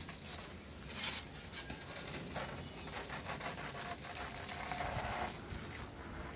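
A jet of white vinegar from a sprayer spattering onto a wooden deck and a rubber doormat, in two spells of hissing spray with a short pause between them.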